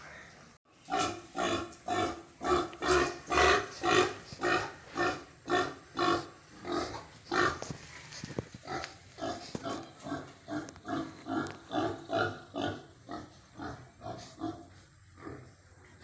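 Pig grunting in a steady run, about two grunts a second, louder at first and weakening in the second half.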